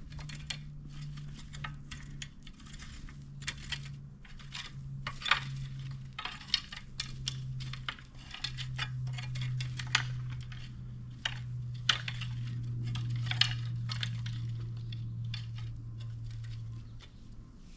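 An engine running with a steady low hum that drops slightly in pitch about eight seconds in, under frequent sharp, irregular metallic clanks and clinks.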